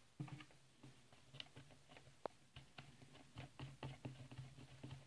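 Faint, scattered small clicks and taps of metal parts handled by hand: the bar nuts being fitted and threaded onto a chainsaw's bar studs. A faint low hum runs underneath.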